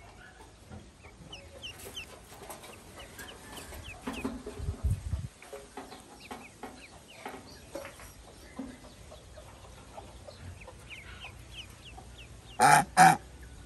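Downy chicks peeping in many short, high chirps, with a brief low rumble around the middle. Near the end a domestic goose gives two loud honks in quick succession.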